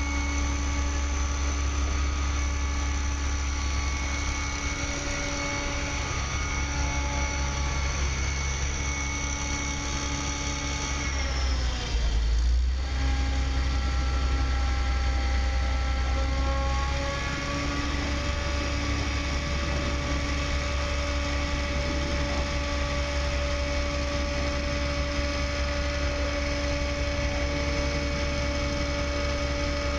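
Crane engine running steadily during a lift, with a deep rumble under a cluster of steady tones. About twelve seconds in, its pitch slides down and then settles at a new engine speed.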